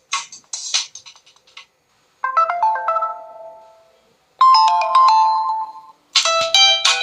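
Stock alert tones of a Nokia Lumia 925 smartphone, played one after another. A clicky, rhythmic tone ends early, then two short chimes follow, each a quick run of notes that rings out over a second or two, with a brief silence between them. A busier tone of many quick notes starts near the end.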